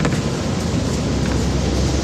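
Isumi Railway diesel railcar pulling out of the station, its engine running with a steady low rumble.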